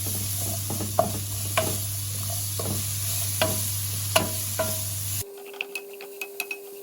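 Chicken, onion, capsicum and green chillies sizzling in a frying pan while a spoon stirs them, knocking against the pan about once a second. About five seconds in the sizzle stops abruptly, leaving lighter clicks and a faint steady tone.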